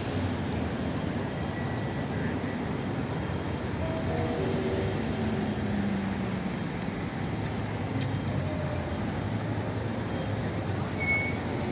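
Steady city street noise, mainly road traffic on a nearby avenue, with a brief high chirp near the end.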